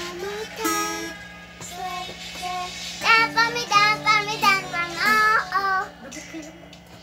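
Young girl singing with acoustic guitar accompaniment; her voice gets louder about three seconds in and trails off near the end.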